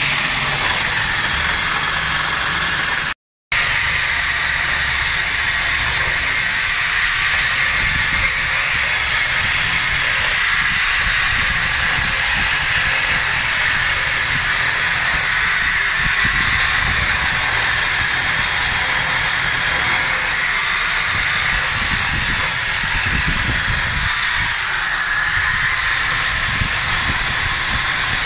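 A Bosch power drill spins a 100 mm diamond-segmented cup grinding wheel against a brick-and-concrete wall, giving a steady, loud grinding noise. The sound cuts out for a moment about three seconds in.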